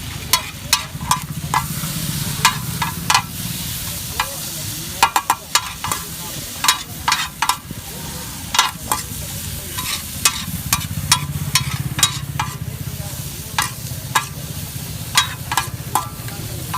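Makka fry (sweet corn kernels) being stirred and tossed in a pan with a metal spoon: many sharp, irregular clinks of metal on metal over a steady frying sizzle and a low hum.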